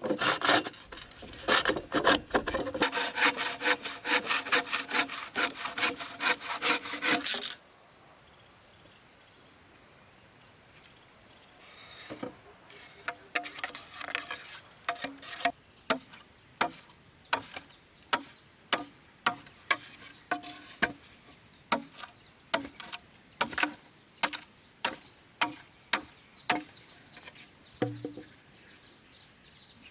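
Wood being hand-sawn with rapid, even strokes that stop suddenly after about seven seconds. After a short pause comes a series of sharp wooden knocks, roughly one every second.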